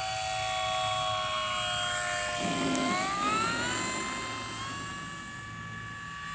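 Electric motor and propeller of a large RC PA-18 Super Cub model whining at low throttle, then rising in pitch about three seconds in as the power comes up, and holding at the higher pitch.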